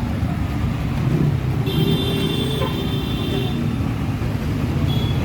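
Motor vehicle engine running with steady traffic noise, and a thin high tone for about two seconds near the middle.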